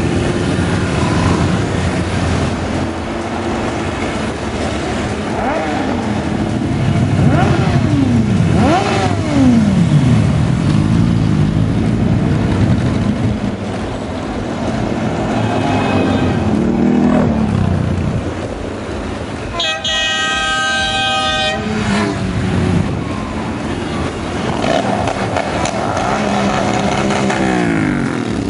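A stream of motorcycles riding past, their engines revving and sweeping down in pitch as each one goes by. About two-thirds of the way through, a horn sounds for about two seconds.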